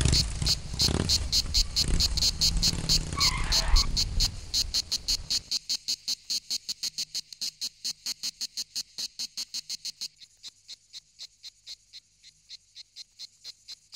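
Crickets chirping in an even rhythm, about five chirps a second. Under them, the engine of a departing Renault 4CV fades away over the first five seconds or so, with a short knock near four seconds.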